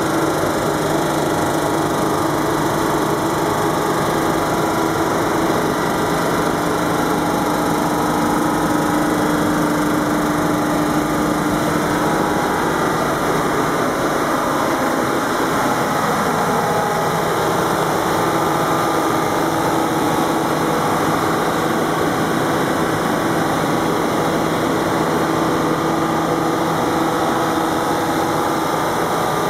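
Detroit diesel engine of a 250 kVA generator set running steadily, a constant engine drone with a steady hum.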